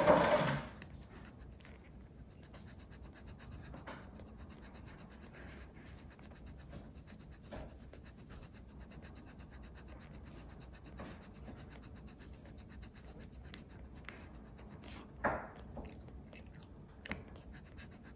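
Newborn Shih Tzu puppies nursing: soft, scattered suckling and smacking sounds. There is a brief louder sound right at the start and another about fifteen seconds in.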